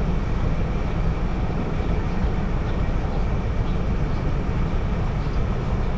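Steady low rumble of a car driving along a road: engine and tyre noise with no distinct events.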